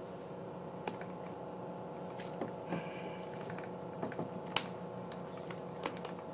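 Handling noise as a wool polishing bonnet is stretched over a polisher's backer pad: a few sharp clicks and light rustling, over a steady low hum.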